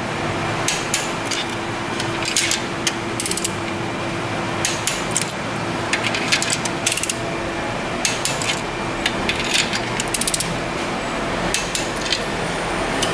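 Hand tools and small metal parts being handled: repeated light metallic clinks and clicks at irregular intervals, over a steady hum that fades out near the end.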